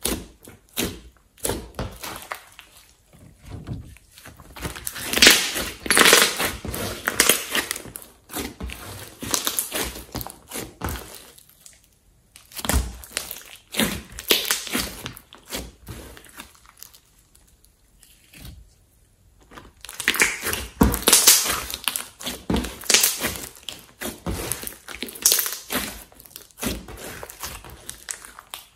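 Slime being kneaded and pressed by hand, in irregular bouts of squishing and crackling clicks with short pauses between them.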